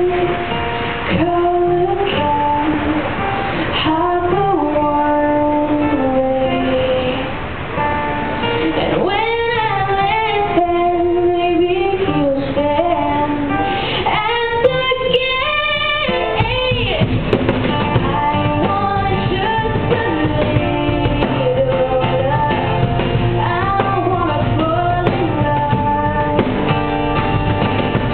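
Live acoustic song: a woman singing with a strummed acoustic guitar, accompanied by a cajón struck by hand, its low beats fuller from about halfway.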